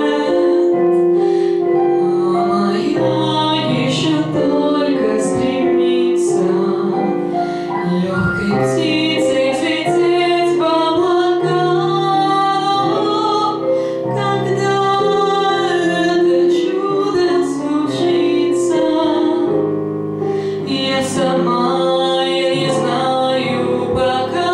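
A woman singing a song, her long held notes carried over a grand piano accompaniment.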